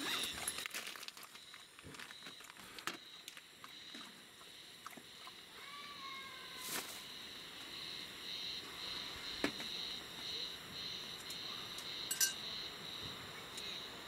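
Plastic bag of raw chicken wings crinkling as it is handled and set down, followed by light clicks and taps of a bottle and carrot slices being placed on a metal trivet in a cast-iron Dutch oven. A steady high-pitched tone runs in the background.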